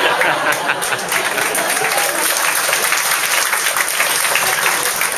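Comedy club audience applauding a punchline: many hands clapping at once in a dense, steady patter.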